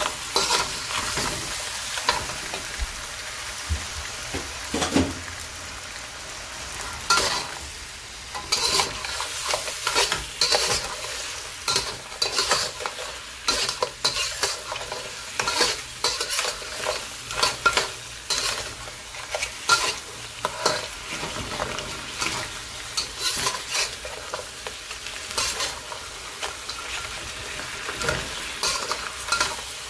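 Steamed lobster pieces sizzling in hot oil and sauce in a wok, stirred with a metal spatula that scrapes and knocks against the pan again and again.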